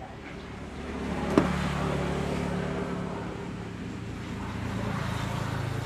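An engine running steadily, growing louder about a second in and then holding, with a single sharp metallic click shortly after.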